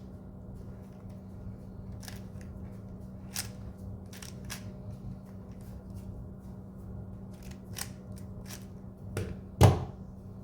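3x3 speed cube being turned by hand: irregular clicks of the layers snapping round, over a steady low hum, with a louder thump near the end.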